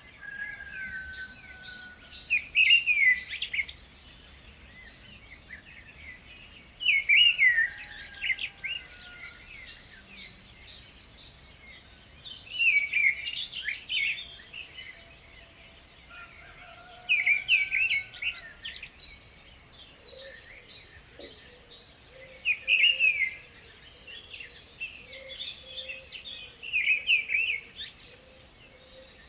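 Songbirds singing: one bird repeats a loud, fast, warbling phrase six times, about every four to five seconds, while other birds chirp high and thin between the phrases and softer whistles sound in the background.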